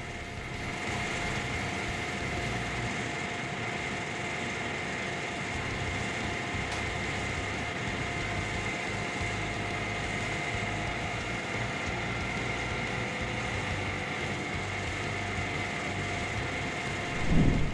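A machine running steadily: an even engine or motor drone with a constant high whine, getting louder near the end.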